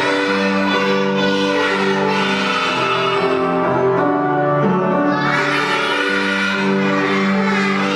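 Music of a children's song. A backing track of held notes plays while a group of young children sing along.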